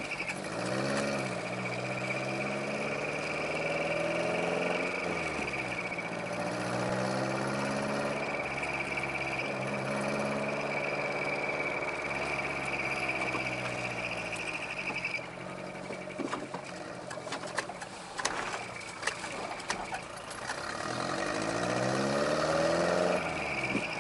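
Subaru Sambar TT kei truck's four-cylinder engine, heard from inside the cab through a homemade split-manifold dual exhaust with Capton-style mufflers, giving a rumbling note. It revs up and drops back several times as the truck accelerates through the gears, with a steady high whine alongside; it runs quieter for a few seconds in the middle before pulling hard again near the end.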